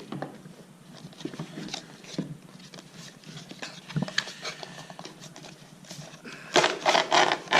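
GoPro camera packaging being handled and opened by hand: scattered light clicks and taps of cardboard and plastic, with a louder cluster of rustling and scraping near the end.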